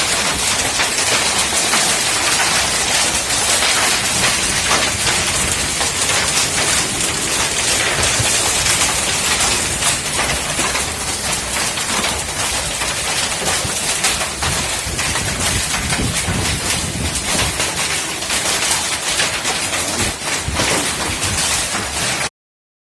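Heavy rainstorm with hail pelting down: a loud, dense hiss of rain peppered with many small sharp hits. It cuts off suddenly near the end.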